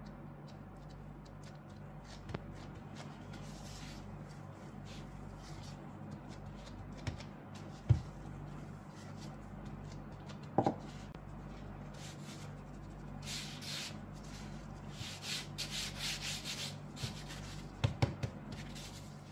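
Nitrile-gloved hands handling shortcrust tart dough, with a few light knocks on the work surface. About two-thirds of the way in comes a run of brushy rubbing as flour is dusted and rubbed over the rolled dough sheet. A steady low hum runs underneath.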